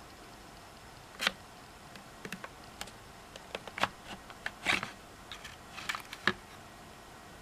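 Irregular hard-plastic clicks and short scrapes as a Makita 18V lithium-ion battery pack is slid back along the battery rails of a Makita cordless cleaner, its lock release button held down. A few of the clicks are louder, the last of them about six seconds in.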